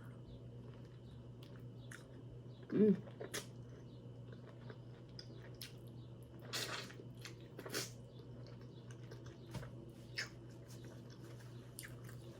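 A person eating, close to the microphone: chewing and mouth clicks, with a couple of sharper cracks about halfway through and a short hummed "mm" about three seconds in.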